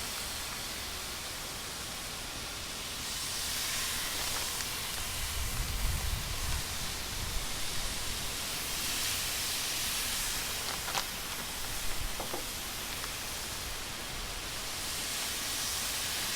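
Marinated chicken pieces sizzling on hot grill grates, a steady hiss that swells and eases, with a few faint clicks.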